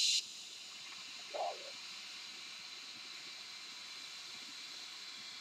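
A long drag on an electronic cigarette: air drawn through the tank and firing coil gives a faint, steady hiss, louder for a moment right at the start. A brief soft sound comes about one and a half seconds in.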